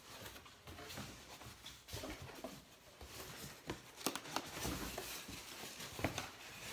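Cardboard box and packing material being handled as a heavy food processor base is worked out of its box: rustling and scraping with several sharp clicks and knocks, a cluster of them about four seconds in and another near the end.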